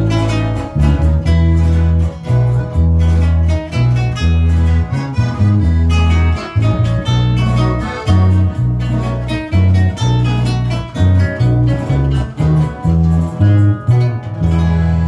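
Live Nicaraguan mazurka band playing an instrumental: electric bass notes on the beat under strummed acoustic guitars and accordion. Near the end the tune closes on a held final chord.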